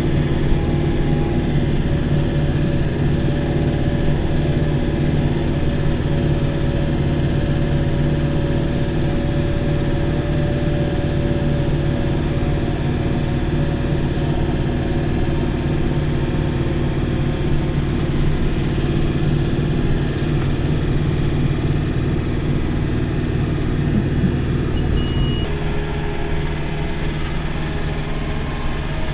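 John Deere 4052R compact tractor's diesel engine running steadily under load, heard from inside the cab, with a PTO-driven rotary cutter mowing dry grass. The engine note changes slightly about 25 seconds in.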